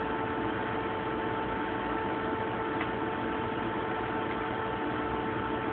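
Steady hiss with a constant mid-pitched hum underneath, unchanging throughout, with no distinct knocks or voices.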